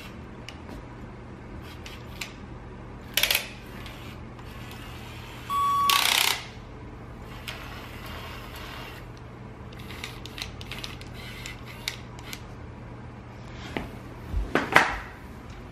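Plastic Rokenbok toy pieces being handled: scattered clicks and knocks over a steady low hum, a short beep followed by a loud rush of noise about six seconds in, and a flurry of clattering near the end.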